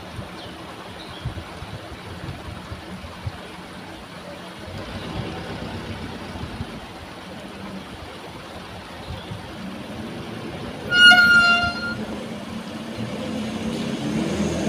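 Heavy machinery engine running at a steady work note, with a vehicle horn sounding once for about a second, roughly three-quarters of the way through. The engine note swells toward the end.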